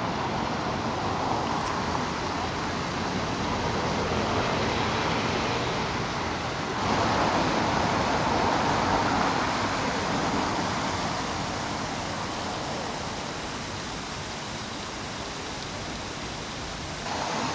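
Steady rushing splash of the Fontana dei Dioscuri, the Quirinale obelisk fountain, its jet falling into the basin. It gets louder about seven seconds in, eases off through the second half, and rises again just before the end.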